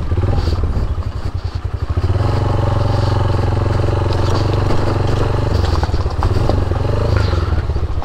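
Motorcycle engine pulling steadily up a rough off-road mountain climb. Its beat breaks up briefly about a second in, then evens out again.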